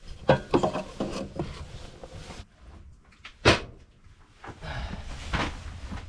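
Split firewood being handled at a woodpile: a quick run of hollow wooden knocks and clatter, one sharp knock about three and a half seconds in, then softer rustling and shuffling.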